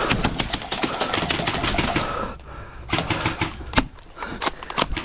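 Airsoft guns firing in rapid full-auto bursts: a fast run of clicks for about two seconds, then shorter bursts and a few single louder cracks. The shooter empties the magazine and calls for a reload just after.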